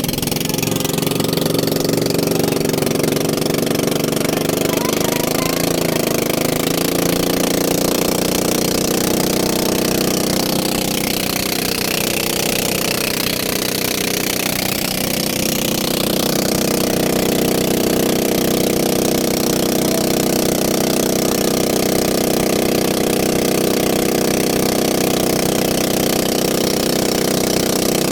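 A small engine running steadily at an even speed. A hiss swells and fades again about midway.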